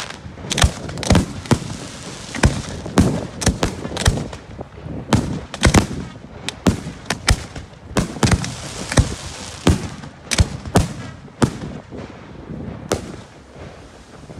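Fireworks display: an irregular run of sharp bangs from aerial shells bursting, at times several a second, thinning out near the end.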